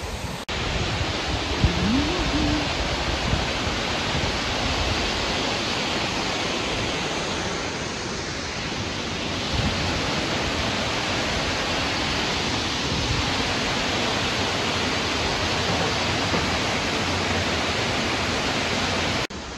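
Water-wall fountain, a sheet of water falling down a wall into a pool, giving a steady rush of falling and splashing water.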